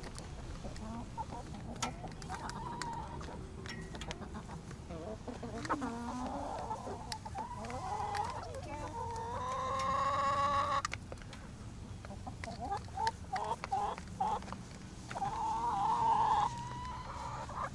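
A flock of backyard laying hens clucking as they feed. A long drawn-out call rises slightly in pitch about ten seconds in, and another held call comes near the end, over light scattered clicks.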